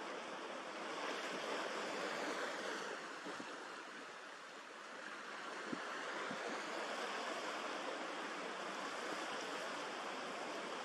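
Choppy sea water washing and lapping, a steady hiss of waves with some wind, easing a little near the middle, with two faint low knocks just past halfway.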